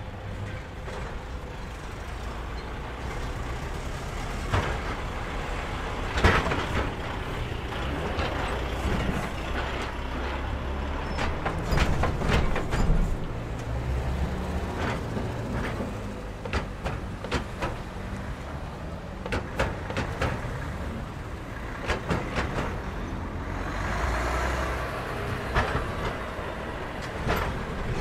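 Heavy lorries and cars driving slowly over a railway level crossing: diesel engines running with a low rumble, and sharp knocks and clatter as the wheels cross the rails and crossing panels. A short hiss comes a few seconds before the end.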